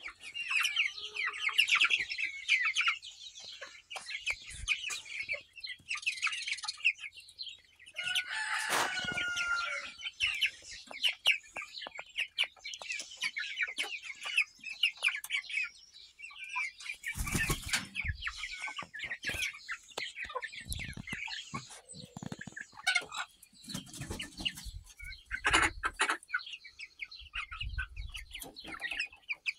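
A flock of young chickens, two to three months old (Lavender Orpingtons, Salmon Faverolles and others), clucking and calling steadily while they feed, with one longer, louder call about eight seconds in. A few low bumps come in the second half.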